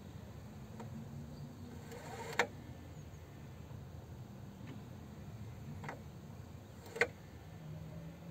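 Hyundai Ioniq's electric air-conditioning compressor running with a low, steady hum. Two sharp clicks stand out, about two and a half and seven seconds in, with a few fainter ticks between them.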